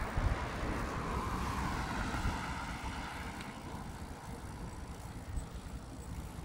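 Wind buffeting the microphone of a phone carried on a moving bicycle, over a rushing sound of traffic or tyres that is loudest in the first two seconds and then fades.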